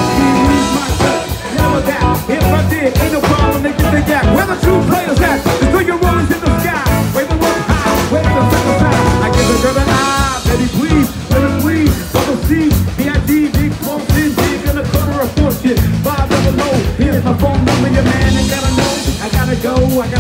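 Live band playing up-tempo rock music, with a drum kit keeping a steady beat under guitar.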